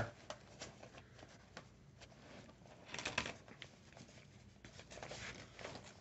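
Faint rustling and small clicks of items being pushed down into a fabric sling bag, with a louder rustle about three seconds in and another near five seconds.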